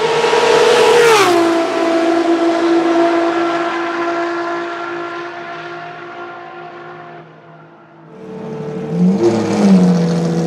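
Ferrari 599XX race car's V12 passing at speed on a wet track: a loud, high engine note that drops sharply in pitch about a second in as the car goes by, then fades away. Near the end a Ferrari FXXK EVO's V12 runs in the pit lane and gives a short rev blip.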